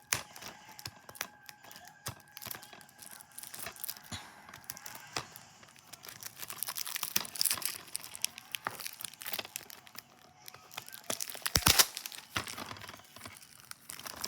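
Plastic shrink-wrap being picked at and torn off a DVD case, with crinkling and crackling, and one louder sharp tear late on.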